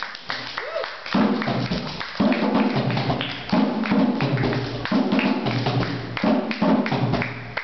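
Hand drums, djembe-style, struck in a fast rhythm, with a low held note sounding again and again, about once a second.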